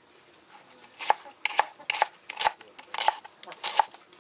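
Cleaver chopping a red onion on a plastic cutting board: about ten sharp, uneven knocks that start about a second in.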